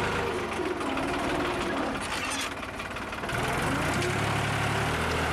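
New Holland tractor's diesel engine running under load as it pulls a tine cultivator through the soil, with a steady rhythmic clatter; it eases briefly about two and a half seconds in, then picks up again.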